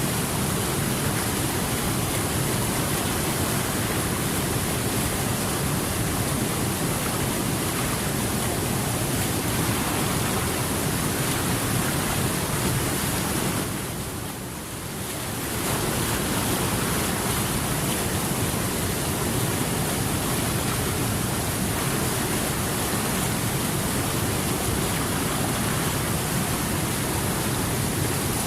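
Steady rushing water, a continuous even hiss that dips briefly in level about halfway through and then returns.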